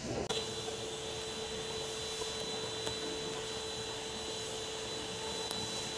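A steady whirring drone with a held high whine over a lower hum. It starts suddenly just after the start and holds level until it cuts off abruptly at the end.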